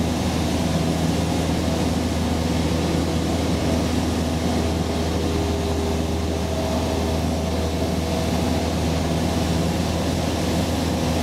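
Light aircraft's engine and propeller droning steadily, heard from inside the cabin: a deep, even hum with a few steady tones above it.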